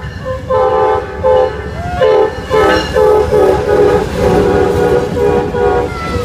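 Amtrak GE Genesis diesel locomotive sounding its multi-chime air horn in a run of short blasts and then longer held blasts, as the train passes close by at speed. Under the horn there is a steady low rumble of wheels on the rails.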